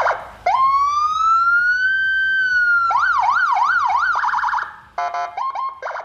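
Landun CJB110Bp electronic siren cycling through its tones. It opens with a short horn-like blast, then a wail that rises and slowly eases down. About three seconds in it switches to a fast yelp of about three sweeps a second, then finishes with short blips and quick rising chirps before cutting off.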